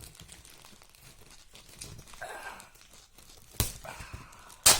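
A shipping package being cut open with a pocket knife and handled: the packaging rustles and crinkles, with two sharp snaps about a second apart near the end.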